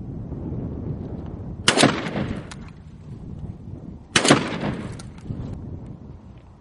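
Two gunshots about two and a half seconds apart, each sharp crack followed by a ringing echo that dies away over about a second.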